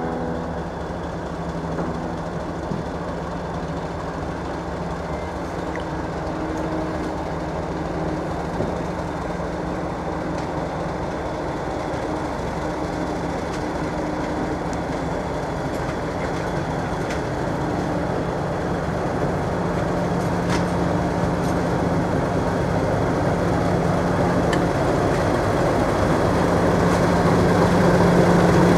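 English Electric Class 50 diesel locomotive's 16-cylinder engine running steadily as it hauls its coaches slowly closer, growing steadily louder.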